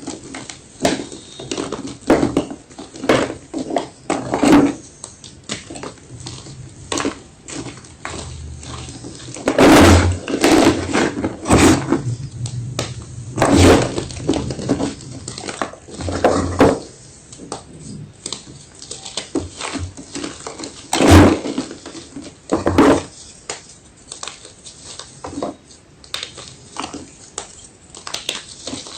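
Block of white gym chalk being crunched: a steady string of irregular crisp crunches, with a few louder, heavier ones about ten and twenty-one seconds in.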